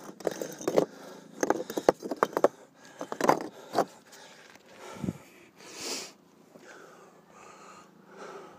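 Quick clicks, knocks and scrapes of a hand and camera moving against granite boulders while a hiker scrambles over them, then a short hiss about six seconds in.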